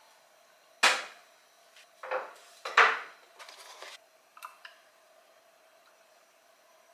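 Sharp knocks and clatters of kitchen things being handled: a cupboard door and containers set down on a wooden countertop. There are three loud hits in the first three seconds, then a couple of light clicks, and it goes quiet.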